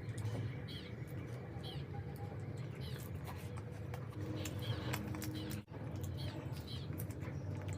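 Close-miked eating sounds: wet chewing and mouth smacking with a run of small clicks and squeaks.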